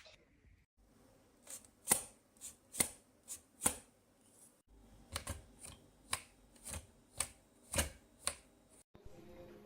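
A dozen or so sharp clicks and taps at irregular intervals, with a short break about halfway through.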